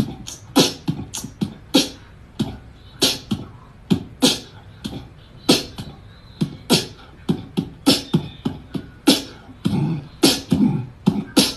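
Rhythmic percussive beat of low thumps and sharp clicks, about two hits a second, in the manner of beatboxing.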